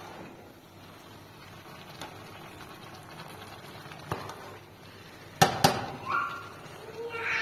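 A few faint clicks, then two sharp knocks in quick succession about five and a half seconds in, like hard objects being set down or struck; a voice starts near the end.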